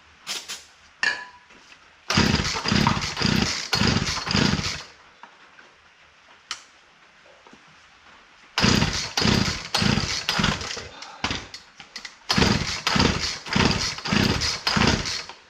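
An old chainsaw being pull-started over and over: three runs of quick, hard pulls on the recoil starter cord, about two a second, with the two-stroke engine cranking but not catching. It is a cold saw that sat unused for about five years and is hard to start.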